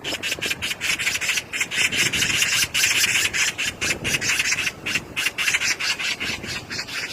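Magpie chattering: a long, rapid, harsh rattle of short rasping calls, several a second.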